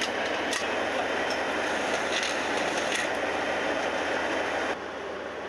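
A vehicle engine running steadily, with a few sharp metal clanks as rockets are lowered by crane and loaded into the TOS-1A launcher's tubes. The running noise drops quieter near the end.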